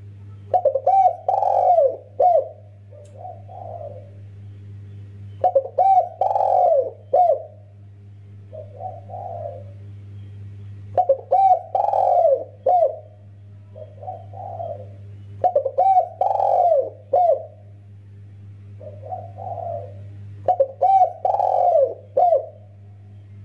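Spotted dove (tekukur) cooing: a phrase of several coos with a longer middle note, repeated five times about every five seconds, each followed by a softer, lower coo. A steady low hum runs underneath.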